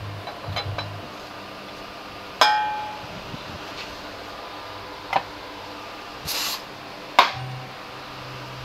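Sharp metallic clinks of hand tools and parts set down on a metal scooter lift and drain bowl: three strikes, the first and last ringing on briefly. A short hiss comes about six seconds in, over a steady fan hum.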